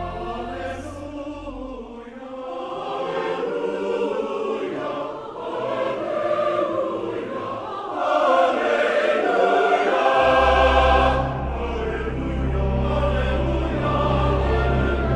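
A choir sings a sacred Christmas piece with instrumental accompaniment. A low sustained bass drops out about two seconds in and comes back about ten seconds in. The choir swells to its loudest just before the bass returns.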